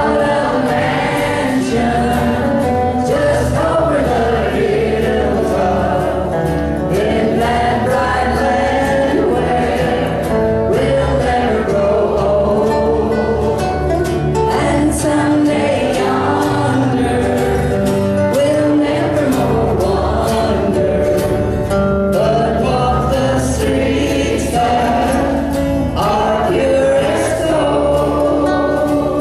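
Western swing band playing live: vocals over guitars and upright bass, one continuous song.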